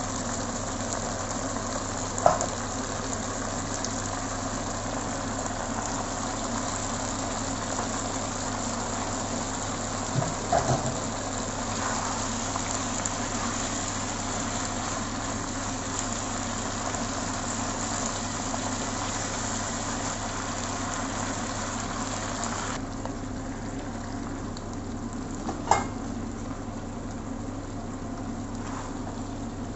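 Sardines, tomato, onion and bell peppers sizzling in a nonstick wok, a steady sizzle over a steady low hum. A spatula knocks against the pan a few times, about 2, 10 and 26 seconds in, and the sizzle becomes quieter about 23 seconds in, after cabbage has been piled on top.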